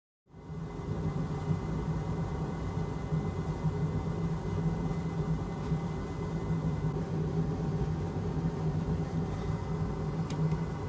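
Steady motor-driven fan drone with a low hum, as from bench equipment running on a repair bench; it cuts in abruptly a fraction of a second in and holds even throughout.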